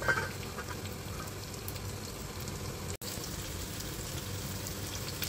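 A stainless steel pot lid clinks down onto a saucepan just at the start, then a steady sizzle of pork and vegetables frying in a pan.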